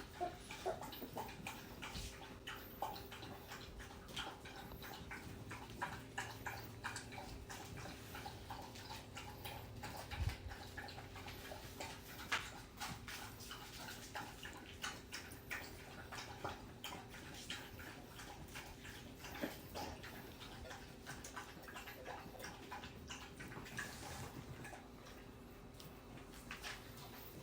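Dachshund puppies moving about: irregular small clicks and scratches over a faint steady hum.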